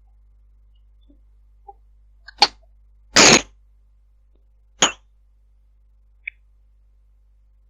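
Unexplained noises heard over a Viber call: a sharp click, then a louder burst of noise lasting about a third of a second, then another sharp click, with a faint blip later, over a steady low hum.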